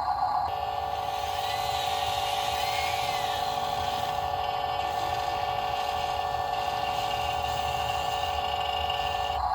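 A steady mechanical drone with a held whining tone from a running motor, changing character abruptly about half a second in and again near the end.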